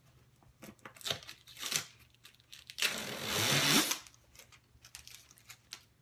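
Packing tape being ripped off a cardboard flat-pack box: a few short tearing scrapes, then one long, loud rip about three seconds in that lasts about a second and gets louder as it goes.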